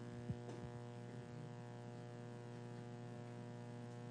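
Steady electrical mains hum from the microphone and sound system, with one faint knock about a third of a second in.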